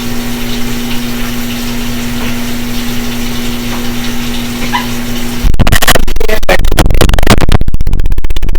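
A steady low hum, then about five and a half seconds in it stops and a loud rush of tap water starts pouring into a kitchen sink.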